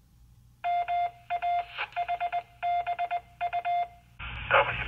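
A Morse code tone over an amateur radio link, a single beeping pitch keyed on and off in short and long elements, the kind of CW identifier a repeater sends. Near the end the receiver hiss opens and a voice starts coming through the radio.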